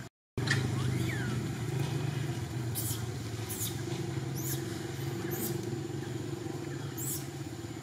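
A motor vehicle engine running steadily, a low even hum that comes in after a brief gap at the start and eases slightly. Five short high chirps sound over it.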